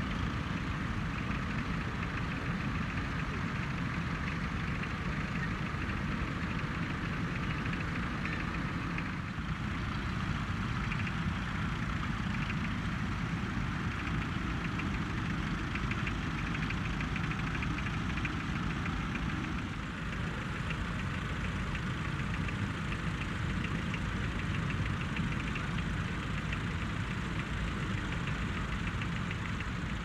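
Several vintage tractor engines running steadily at work, with a fast, even putter.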